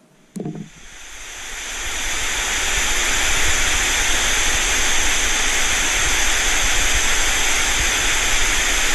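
TV static hiss, an even white-noise rush that fades in over the first couple of seconds and then holds steady. A short click and thump come just before it swells.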